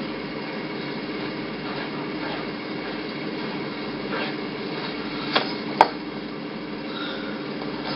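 Steady low droning noise, with two sharp clicks close together a little past halfway.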